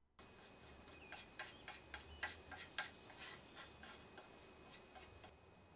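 Putty knife blade scraping and tapping on a mixing board while stirring spot putty: a run of quick, irregular clicks and scrapes for about four seconds that stops shortly before the end. A faint bird chirp sounds about a second in.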